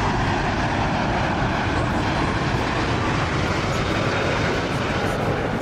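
Boeing 787-9 Dreamliner coming in to land: steady jet engine noise, an even rush with no distinct tones.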